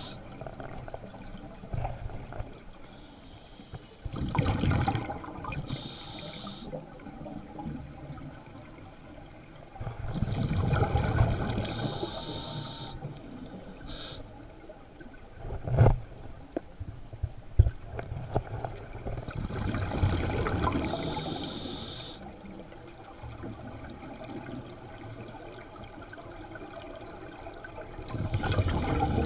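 Scuba diver's regulator breathing, heard through an underwater camera housing: a hiss on each breath in and a rumble of exhaled bubbles, repeating about every eight to nine seconds. Two sharp knocks sound about halfway through.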